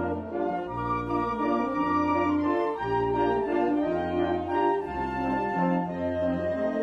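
A brass band (banda filarmónica) playing a slow piece: low bass notes about once a second under held brass chords and melody.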